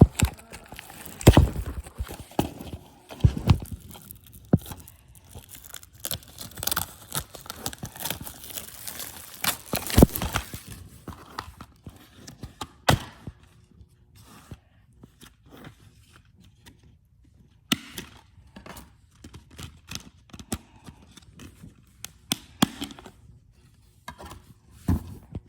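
Packaging being torn open and crinkled by hand, with scattered clicks and knocks of handling; busy for the first half, then only occasional clicks.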